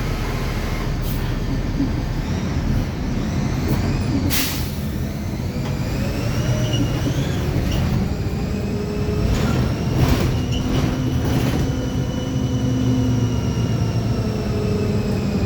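Mercedes-Benz OF-1724L city bus under way, heard from inside: the diesel drivetrain runs with a thin whine from the rear differential that rises and falls in pitch with road speed, the growling differential of this bus. A short hiss of air comes about four seconds in.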